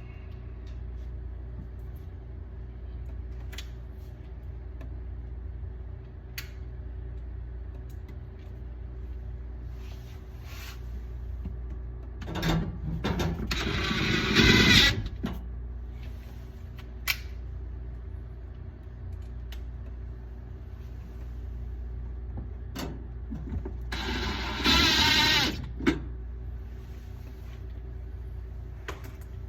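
A steady low machine hum with a few sharp clicks, and two louder bursts of rustling, scraping noise, one about halfway and one near the end.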